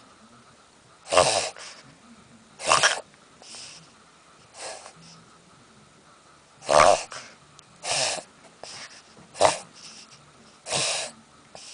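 A Shih Tzu gasping for air: a series of about eight loud, harsh gasps, one every one to two seconds.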